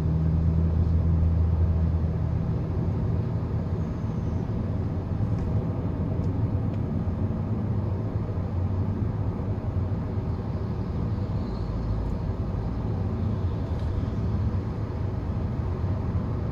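Steady driving noise inside the cabin of a Hyundai Creta Prime IVT cruising at moderate speed: a low engine and tyre hum. A low drone is strongest in the first couple of seconds, then settles.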